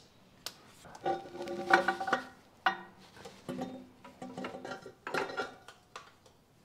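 Metal clinks and knocks, several of them ringing briefly at a steady pitch, as a wrench and the stainless-steel catalytic converter knock against the exhaust manifold flange and studs while the cat is being fitted.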